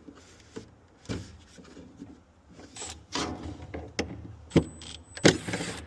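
Handling noise as a refrigerator's evaporator fan assembly is worked on: a series of sharp clicks and knocks of plastic and metal parts, the loudest two near the end, with a brief thin high whine between them.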